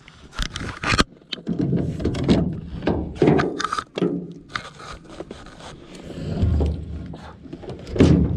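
Handling noise of scuba gear being moved about in a small rowboat: a run of knocks, scrapes and dull thumps, with sharp knocks about a second in and again near the end.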